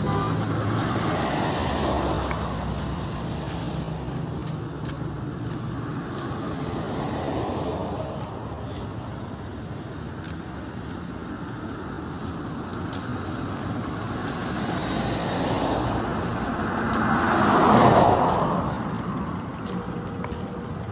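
Road traffic: vehicle engines and tyres running steadily, with one vehicle passing close and loudest near the end.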